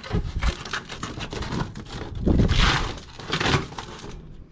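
Insulated flexible air duct being cut and pulled by hand: crackling and crinkling of the foil jacket and duct material, with two louder rustling stretches around the middle.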